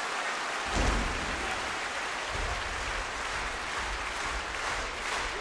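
Concert hall audience applauding, a steady even clapping. A low thud comes about a second in, and a low rumble sits under the clapping from a little past two seconds.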